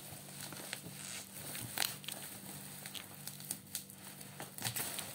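Speaker box packaging being handled: crinkling and crackling with scattered small clicks, and a sharper click nearly two seconds in.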